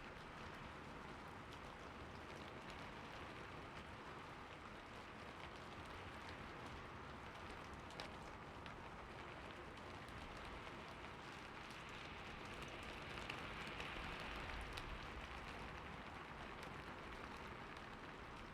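Steady light rain falling in a small forest, a soft even hiss with scattered drop ticks and a slight swell about two-thirds of the way through.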